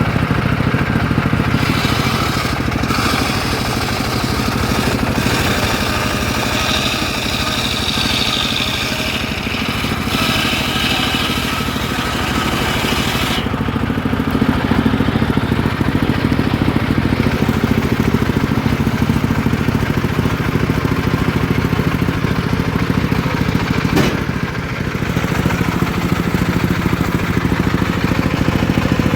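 Engine-driven homemade circular sawmill running steadily while its blade rips old black teak, with a harsher, higher hiss during roughly the first half.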